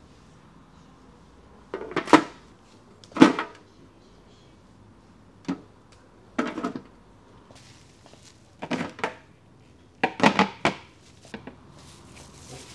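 Household handling sounds, dishes and wooden doors or drawers: a series of separate knocks and clatters, about seven in all, the loudest two early in the series.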